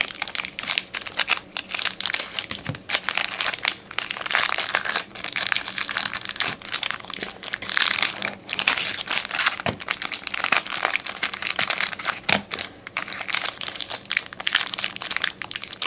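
Plastic packaging around trading cards crinkling and rustling in irregular crackles as the cards are handled and unwrapped.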